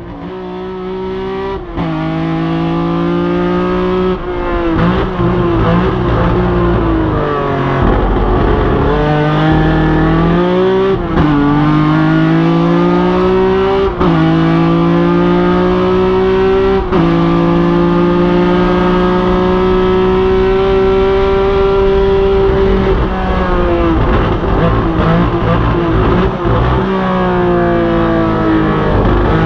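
1975 BMW 3.0 CSL Group 4 race car's straight-six at full race pace, heard from the cockpit. The revs climb and drop sharply at each upshift, about five times, and fall away in longer slides as the car brakes and downshifts for corners.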